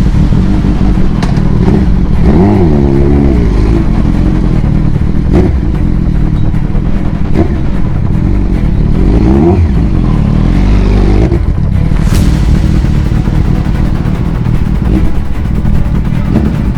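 Kawasaki ZX-12R's 1,199 cc inline-four engine running over a loud, steady low rumble, its pitch rising and falling a few times as it revs.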